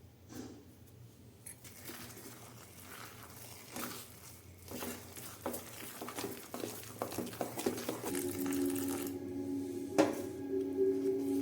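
Kitchen utensils and dishes knocking and clinking in a rapid, irregular series. About eight seconds in, a steady low humming tone comes in, and there is a single sharp click near the end.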